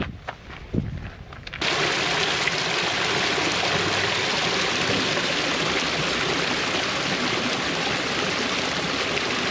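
A few quiet footsteps, then steady rushing of flowing water, like a small stream or runoff over rock, which starts abruptly about a second and a half in.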